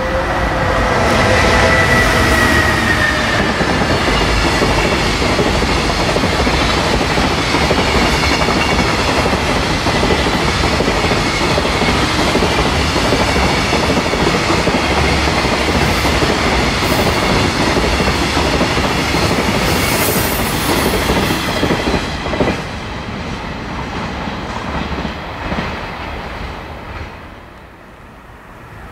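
A container freight train hauled by a JR Freight EF210 electric locomotive passes at speed. The locomotive's inverter whine falls slightly in pitch and fades over the first few seconds. Then a long string of container wagons clatters over the rail joints in a steady rumble that dies away near the end as the tail passes.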